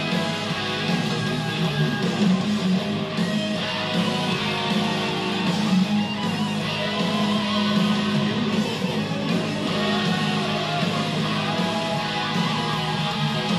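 Hard rock band recording playing, with electric guitars over bass and drums, and keyboards.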